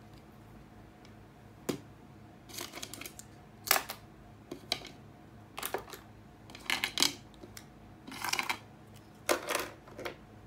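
A series of short, sharp clicks and clattery taps, about a dozen spread irregularly, over a faint steady hum.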